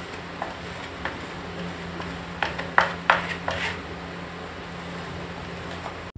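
A hand-held spreader scraping wet Fevicol wood glue across a plywood panel in repeated strokes, the loudest few coming about two and a half to three and a half seconds in, over a steady low hum.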